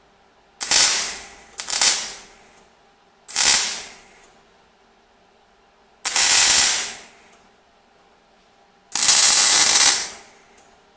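Welder laying five short tack welds on a steel repair panel, each a burst of crackling about a second long, the last two held slightly longer.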